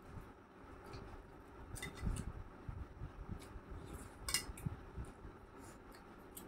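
Fingers mixing rice on a stainless steel plate, scraping and tapping the metal, with scattered small clinks; the sharpest, with a short ring, comes about four seconds in.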